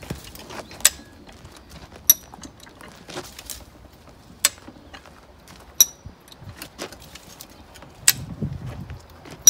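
Farm jack being pumped to pull a fence post, its lifting mechanism giving a sharp metal click with each handle stroke, about one every one to two seconds.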